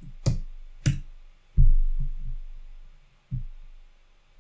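Two sharp computer-keyboard key clicks, starting a test run in the terminal, followed by four dull low thumps.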